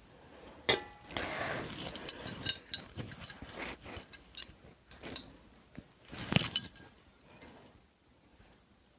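Eating from a plate of biryani: a quick series of light clinks and clicks of food being mixed and scooped on the plate, with a soft rustle about a second in and a louder cluster of clinks around six seconds in.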